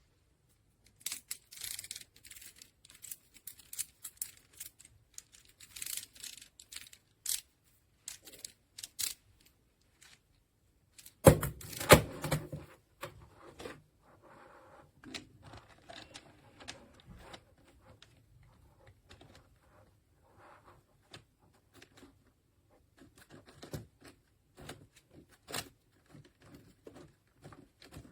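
Handling noises: scattered clicks, taps and rustling, with two loud knocks about eleven and twelve seconds in.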